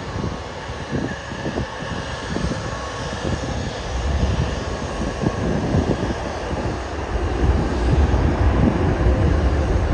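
Jet airliner engines rumbling as an aircraft moves along the runway, the low rumble swelling from about four seconds in, with wind buffeting the microphone.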